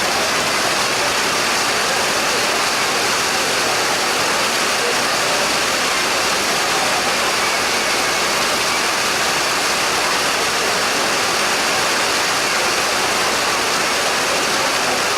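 Heavy rain falling steadily: a dense, even hiss of downpour that does not let up.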